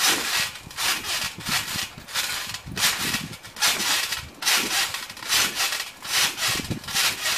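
Bare feet bouncing on a trampoline mat covered in wet Orbeez water beads, a wet swishing spatter of beads at each landing, repeating a little faster than once a second.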